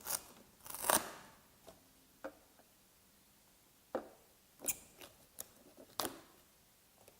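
Protective cushion pad of a self-balancing scooter being pried up with a flat-blade screwdriver and peeled off: scattered short crackles and clicks.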